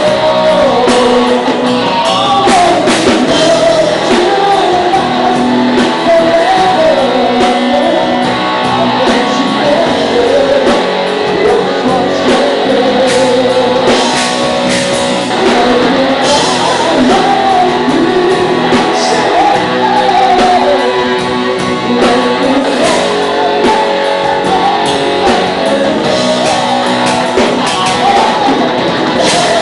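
Live rock band playing loud in a large room, with a sung or shouted lead vocal over electric guitars and drums.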